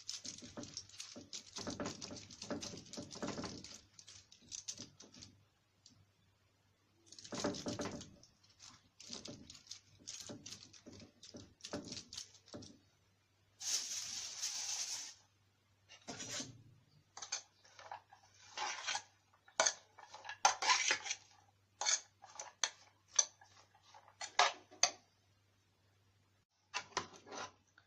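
Kitchen utensils and dishes clinking and scraping in irregular bursts, with a short stretch of hissing noise about halfway through, as seasoning is spooned and spread onto a fish.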